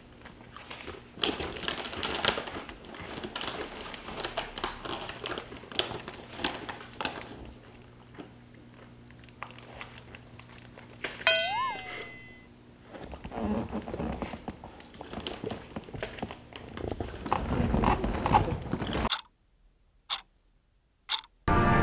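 Quiet room activity: scattered clicks, crinkling and rustling, like snack packaging and pages being handled, with a short chirp that rises and falls about halfway through. Near the end the sound drops to silence broken by two sharp ticks about a second apart.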